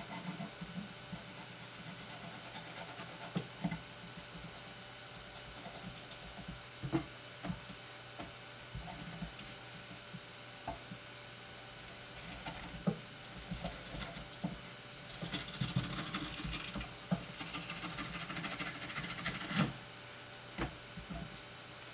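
A knife skinning a Japanese sea bass fillet on a cutting board: scattered light taps and knocks over a steady low hum, with a stretch of scratchy scraping from about two thirds of the way in as the blade is drawn between skin and flesh.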